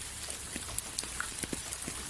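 Steady hiss of rain falling, with single drops hitting a surface in irregular sharp ticks.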